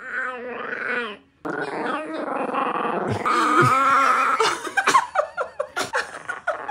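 Bichon frise puppy making a drawn-out, growling whine, then a string of short, sharp yips about two-thirds of the way through.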